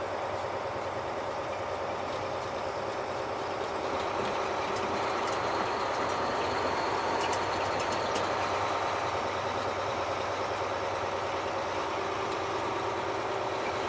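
Delivery truck's engine running and road noise heard from inside the cab while driving, a steady hum that grows slightly louder about four seconds in, with a few faint ticks in the middle.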